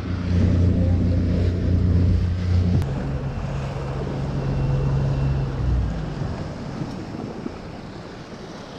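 Boat engine running under way, with wind on the microphone and water noise. The engine note changes about three seconds in and fades out around six seconds, leaving wind and water.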